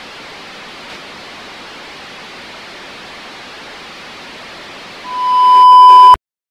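Steady hiss of video static, then a single loud steady test tone that swells up about five seconds in and cuts off abruptly about a second later: a bars-and-tone test signal.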